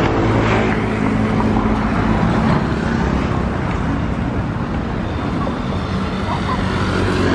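Road traffic: cars and motorbikes running along a busy street, a steady noise of engines and tyres, with one engine's low hum standing out for the first two or three seconds.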